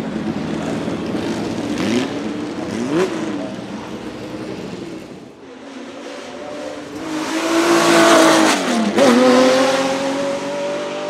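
Porsche 917K's air-cooled flat-12 race engine under hard acceleration, its pitch rising and falling with throttle and gear changes. It is loudest about eight seconds in, drops sharply in pitch at an upshift just after, then climbs steadily again as the car pulls away.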